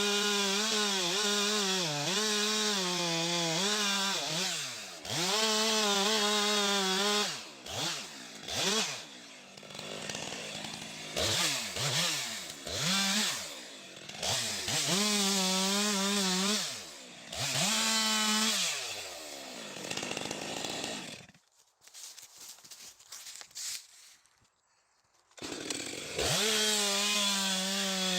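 Two-stroke chainsaw revving at high speed, dropping back and rising again over and over as the throttle is worked. About three-quarters of the way in it goes almost silent for a few seconds, then runs at high revs again near the end.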